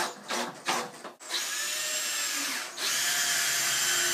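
Cordless drill working into wood: a few short trigger bursts, then two longer runs of about a second and a half each with a short pause between them. The whine drops in pitch as the first long run winds down.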